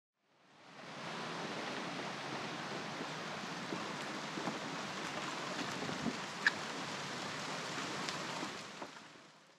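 Steady rush of flowing river water, fading in at the start and out near the end, with a faint sharp tick about six and a half seconds in.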